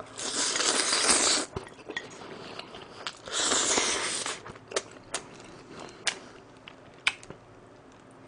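A person slurping instant noodles into the mouth, twice, each slurp lasting about a second, followed by a few faint clicks while chewing.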